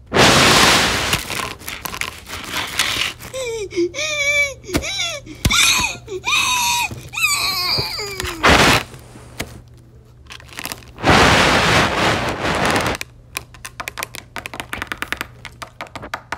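Stop-motion sound effects: a loud rushing, hiss-like burst, then several seconds of high, wavering vocal cries that slide up and down in pitch. A second loud rushing burst follows, then a fast run of clicks near the end.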